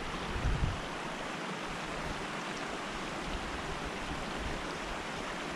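Steady rushing of a small creek's water running through beaver-dam channels, with a brief low thump about half a second in.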